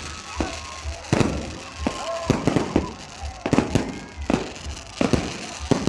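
Fireworks going off: an irregular, rapid series of sharp bangs and pops.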